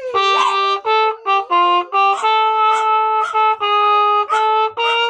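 A trumpet-like brass horn playing a slow melody in separate held notes, over a light beat of about two hits a second.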